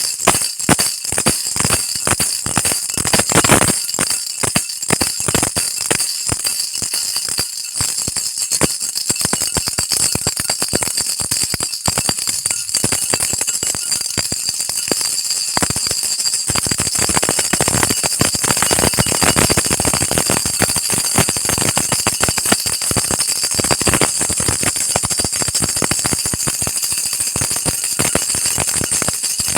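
Baby rattle being shaken, its beads or pellets clattering sharply. At first it comes in separate quick shakes, then from about halfway it becomes a continuous fast rattle.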